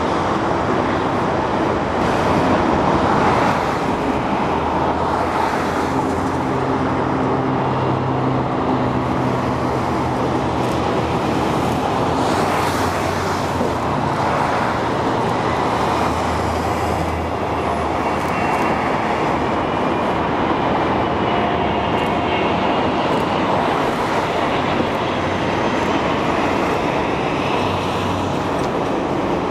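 Steady road traffic noise, with passing vehicles' engines coming and going.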